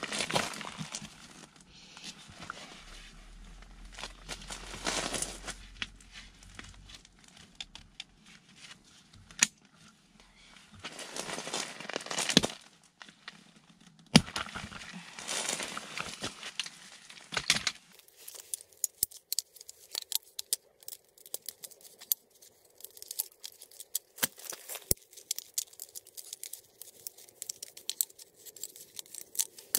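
Hands dismantling a camping cot's aluminium pole frame: crinkling and rustling come in several bursts, with sharp clicks and knocks as the poles come free. From about 18 seconds in it turns quieter, to a scatter of small ticks.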